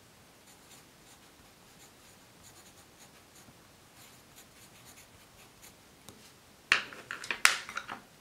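A pencil writing small letters on paper in faint, light scratching strokes. Near the end come a few loud, sharp knocks and clatter as pencils are handled and put down.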